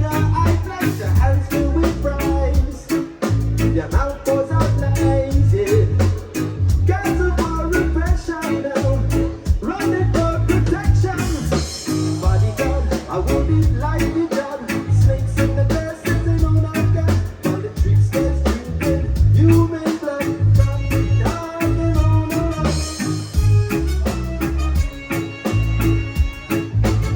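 Live band playing the song: drum kit, bass guitar, electric guitar and keyboards over a pulsing bass line, with cymbal crashes twice.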